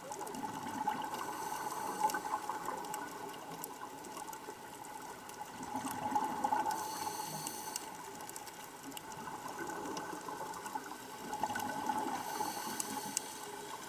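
Underwater scuba sound: a diver's regulator bubbles rushing out in swells about every four seconds, with scattered faint clicks.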